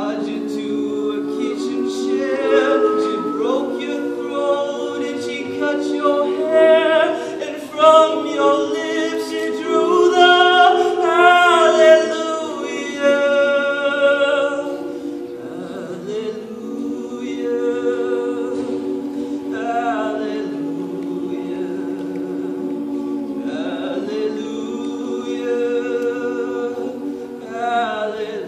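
Mixed-voice a cappella group of men and women singing in close harmony, with held chords under a moving melody line. The singing grows louder for a stretch in the middle, then eases back to a softer, sustained passage.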